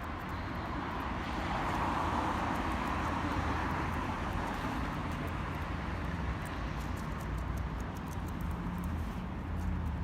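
Steady outdoor traffic noise, swelling as a vehicle passes about a second or two in, over a low rumble.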